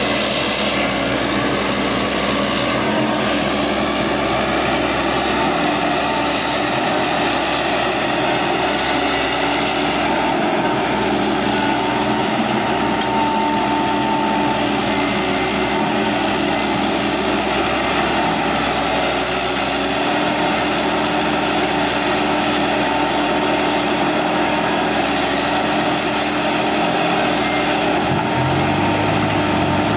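Excavator's diesel engine running steadily while it digs and loads. The engine note shifts near the end.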